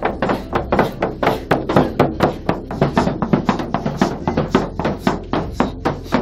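Shaman's rawhide frame drum beaten in a steady, fast rhythm, about four strokes a second.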